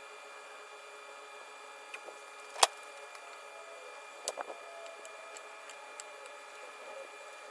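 Clamps and wooden pieces being set and knocked during a glue-up: one sharp knock about two and a half seconds in, then a few lighter clicks and taps, over a steady background hum.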